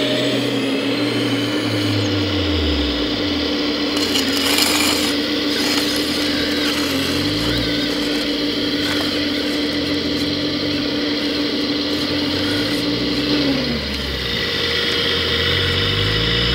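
Electric hydraulic pump and motors of a 1:14 scale RC hydraulic excavator running with a steady whine, joined by lower motor hums that rise and fall as the machine works. A brief rattle comes about four seconds in, and the whine drops in pitch and stops near the end.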